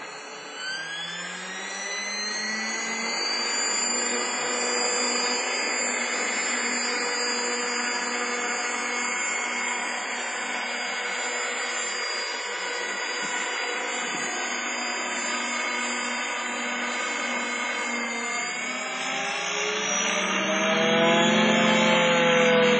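Eagle 3 EP electric RC helicopter's motor and rotor whining as it spools up about a second in, then running steadily, with the pitch wavering up and down and growing louder near the end. The owner reports an abnormal noise from the airframe in flight that has not been cured.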